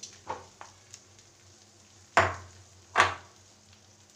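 A spatula spreading potato-and-egg omelette batter in a non-stick frying pan, over a faint sizzle. Soft scrapes and taps come first, then two louder knocks against the pan about a second apart.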